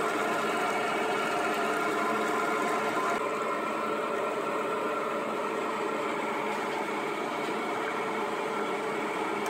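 Electric meat mincer running steadily with a motor hum and whir as soaked split chickpeas are forced through its perforated plate.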